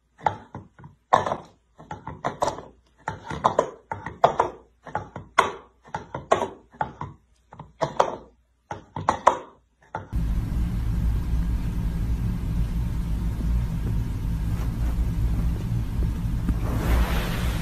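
A cat rocking an orange plastic bowl on a hard floor, pressing the rim so the bowl tips up and drops back with a knock. The knocks come about twice a second for about ten seconds, then give way to a steady low rumble.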